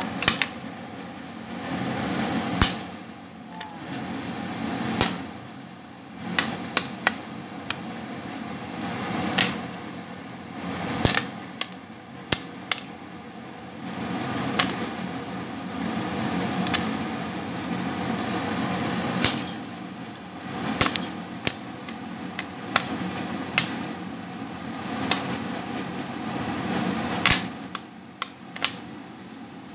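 Popcorn kernels popping in hot oil in a stainless-steel pot, sparse and irregular pops over a steady hiss, the last kernels of a nearly finished batch.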